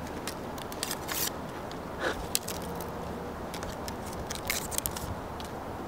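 Scooter grip tape and its paper backing crackling and rustling as it is peeled and handled, in short irregular crackles.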